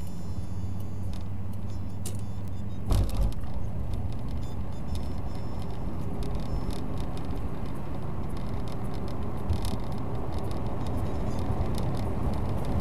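Car engine and road noise heard from inside the cabin as the car accelerates from walking pace to about 33 mph. There is a single thump about three seconds in, and small rattles and clicks run throughout.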